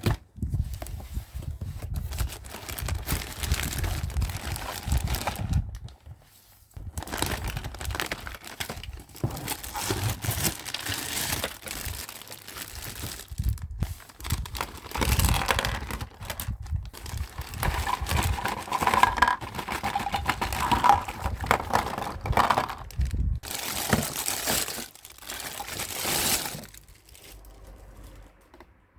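Packaging crinkling and tearing as a toy is unwrapped by hand, in irregular stretches with short pauses, dying down near the end.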